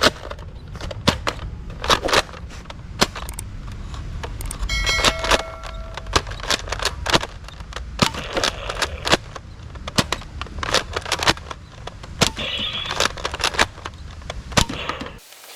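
Plastic toy guns being handled and fired: repeated sharp clicks and snaps at irregular spacing, a few a second, over a low rumble. A short pitched tone sounds briefly about five seconds in.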